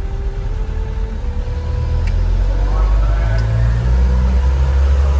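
Truck engine running while driving, heard from inside the cab: a steady low drone that grows louder about two seconds in, with a whine that steps up in pitch twice in the first second and a half.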